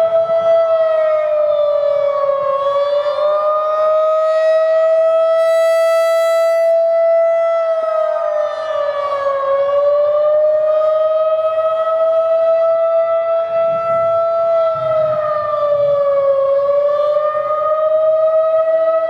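Federal Signal 2001-SRN rotating electromechanical warning siren sounding a steady tone for its monthly test. Its pitch dips slightly about every seven seconds as the siren rotates.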